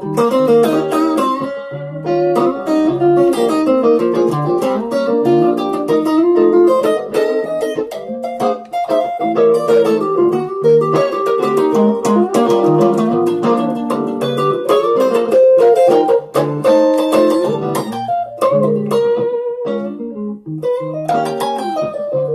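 Electric guitar played through a Zoom G1on multi-effects pedal, improvising B-flat blues: a continuous stream of quick single-note lines mixed with chord stabs, with a short lull near the end.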